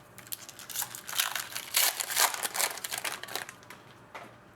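Foil trading-card pack wrapper crinkling as it is handled and opened: a dense run of quick crackles that builds for about a second, peaks in the middle and dies away about a second before the end.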